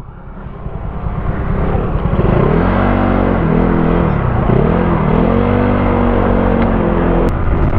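Motorcycle engine pulling away and picking up speed: its pitch climbs, dips about halfway through, then rises again and holds steady, under a constant rush of wind and road noise.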